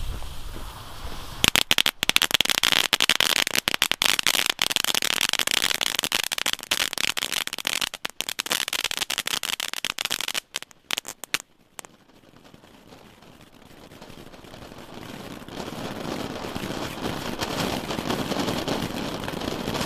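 Two Category 1 'Color Cascada' ground fountains firing. From about a second and a half in comes dense, really loud crackling that stops abruptly after about ten seconds, and then a fountain's steady spray hiss builds toward the end.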